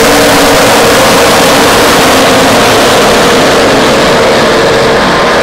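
ARCA stock cars' V8 engines running at speed down the front stretch in a loud, dense roar. The sharp top end fades after about three and a half seconds as the cars move away.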